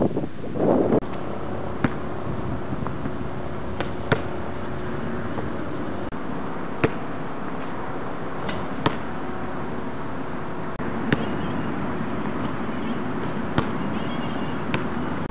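A basketball thumping on a concrete outdoor court, with a sharp impact about every two seconds, over a steady hiss of wind on the microphone.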